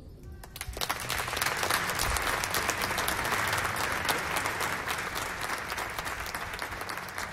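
Audience applauding at the end of a big band song: clapping starts about half a second in, swells within a second, then slowly thins out toward the end.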